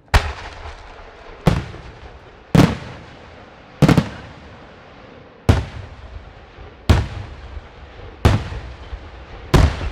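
Aerial firework shells bursting in a steady sequence: eight heavy bangs about a second and a half apart, each trailing off in a low rumble.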